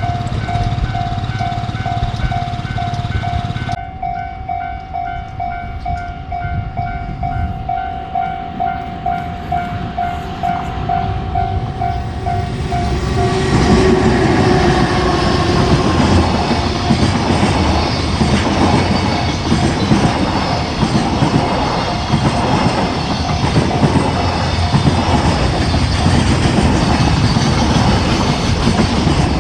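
Japanese level-crossing warning bell ringing steadily at about two strokes a second, then a train passes over the crossing from about halfway through, its wheels clattering over the rail joints and drowning out the bell.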